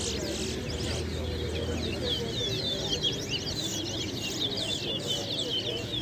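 Caged towa towas (chestnut-bellied seed finches) singing a fast, continuous warbling song of quick up-and-down notes, with crowd murmur underneath.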